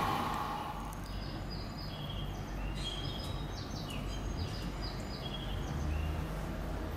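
Rushing noise of a passing Odakyu electric train dying away in the first second, then quiet station ambience with a low rumble and many short, high chirps of small birds.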